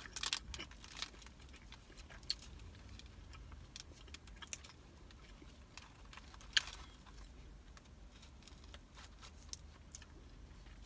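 Eating from a takeout food container: scattered small clicks and taps, the sharpest about six and a half seconds in, over a faint low hum.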